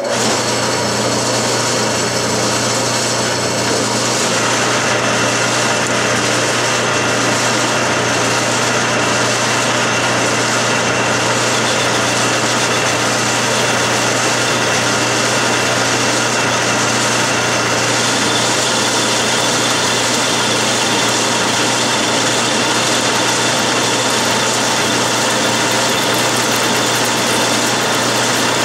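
Metal lathe spindle turning at 500 RPM while a parting tool cuts off 1¼-inch steel bar under power feed, with oil dripped onto the cut: a loud, steady machining noise over a constant motor hum.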